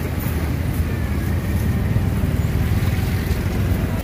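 Steady low rumbling noise with no distinct strikes standing out.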